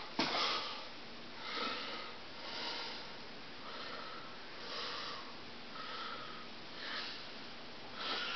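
A person breathing softly and fairly fast close to the microphone, a breathy puff about once a second.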